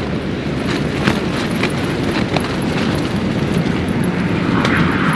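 Strong wind gusting against a tent and rumbling on the microphone, with scattered sharp snaps of the fabric.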